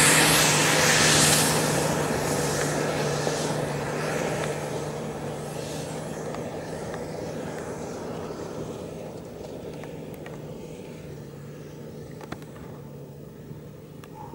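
Off-road SUV's engine working hard as it climbs a steep muddy slope, its sound fading steadily as the vehicle drives away up the hill.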